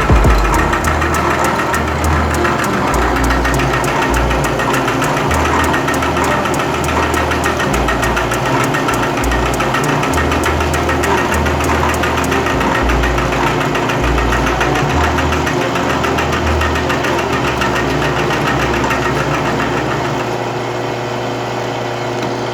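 Retrofitted CNC milling machine cutting steel: the spindle motor runs steadily under a rapid, even chatter of the cutter against the workpiece. About twenty seconds in, the high, sharp part of the cutting sound fades and the overall level drops a little.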